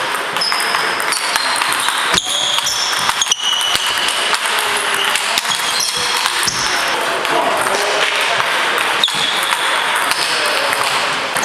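Celluloid table tennis balls clicking off hardbat paddles and the table, each hit a sharp click with a short high ping, a few scattered hits over a steady murmur of voices in the hall.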